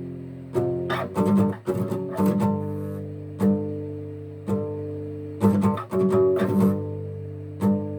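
Old warped acoustic guitar played solo in a dark metal style: low chords struck about once a second and left to ring out, with quick runs of picked notes between them, about a second in and again near six seconds.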